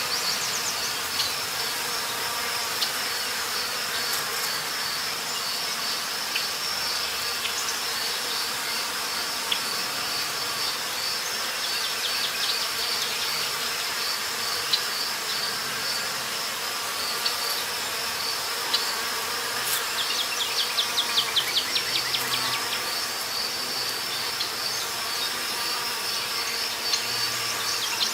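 Forest ambience of a steady, pulsing insect chorus. About twenty seconds in, a fast run of rapid chirps rises over it for a few seconds.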